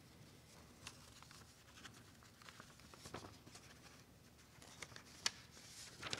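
Faint rustling and light clicks of paper sheets being handled and turned at a lectern, with a sharper click a little after five seconds, over quiet room tone.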